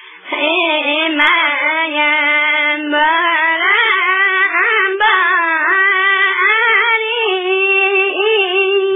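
A single high voice singing a wavering melody without a break.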